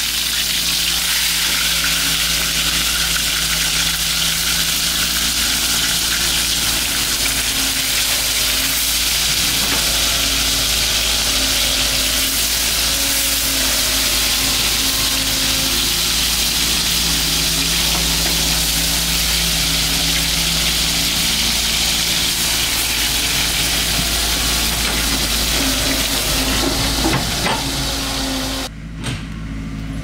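Whole fish sizzling in hot oil in a steel wok, a steady loud crackling hiss. The sizzle cuts off suddenly near the end.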